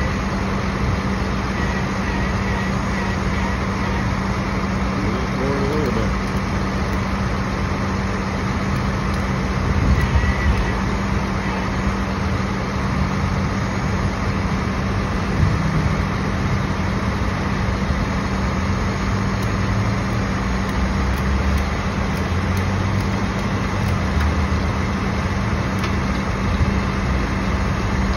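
Tow truck's engine idling steadily, with a constant low hum and a few small knocks.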